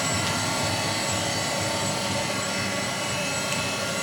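Steady machinery hum from running motors, with several steady tones of different pitch held throughout. There is a faint tick about a third of a second in and another near the end.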